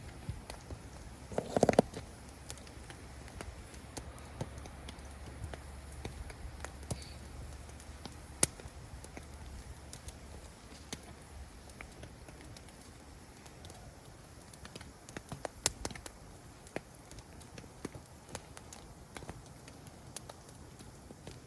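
Wood campfire crackling, with scattered sharp pops over a faint steady hiss; a louder cluster of pops comes about a second and a half in.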